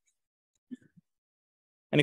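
Near silence in a pause of speech, with one brief faint sound a little under a second in; a man's voice starts speaking near the end.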